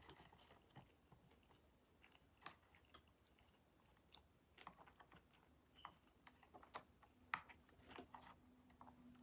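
Faint close-up chewing of a sushi California roll, heard as soft, irregular mouth clicks, with a faint steady hum coming in about seven seconds in.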